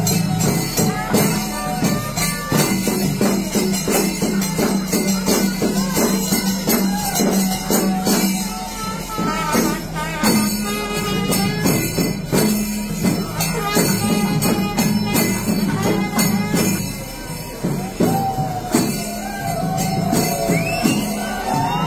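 Festival percussion music: rapid, dense drum strokes with jingling cymbals over a steady low drone, played loud and continuously. Near the end, rising pitched calls.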